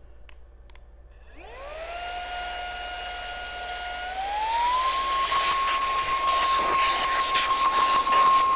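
Battery-powered electric air duster starting up: its motor whine rises about a second in and settles to a steady pitch, then climbs to a higher pitch around four seconds in. A loud rush of air blasts from the nozzle.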